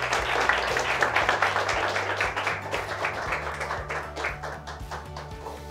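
Small audience applauding, the clapping gradually dying away.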